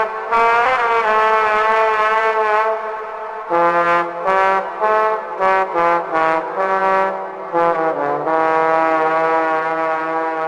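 Music led by brass horns such as trumpets and trombones, playing a melody of held notes and runs of short repeated notes, with a bass line joining about three and a half seconds in.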